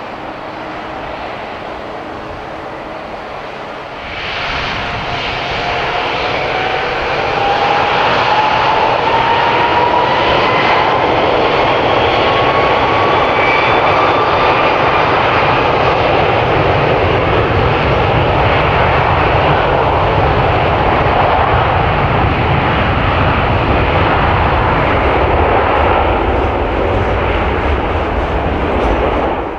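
Jet airliner's engines spooling up: a whine rises steadily in pitch as the noise builds to a loud, steady jet sound, which cuts off suddenly at the end.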